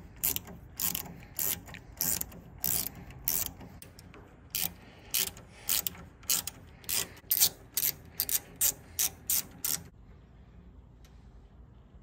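Small hand ratchet with a hex-bit extension clicking in short back-and-forth strokes, about two clicks a second, as it drives in the screws that hold the horn button cap to the steering wheel hub. The clicking stops about ten seconds in.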